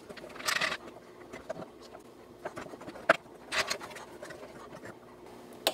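Hands handling plastic electrical connectors and wiring on fuel injectors in an injector test bench: scattered light clicks and rustles, with one sharper click about three seconds in.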